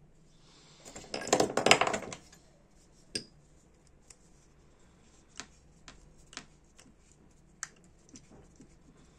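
Small metal tools and lighter parts clattering and clinking against each other and the bench for about a second, followed by scattered light metallic clicks as a small screwdriver works on the metal body of a Dupont L1 lighter.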